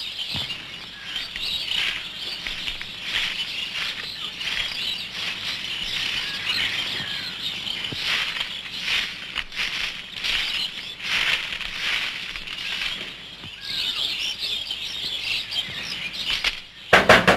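Many small birds chirping together in a steady outdoor chorus. Near the end, a quick run of sharp, loud taps.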